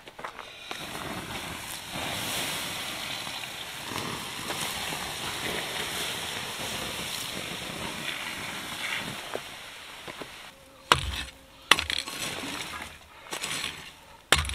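Water poured onto the smouldering coals of a campfire, a steady splashing hiss for most of the time as the fire is doused. Near the end, a few sharp clinks and scrapes of a metal shovel striking the ring's rocks and stirring the wet ashes.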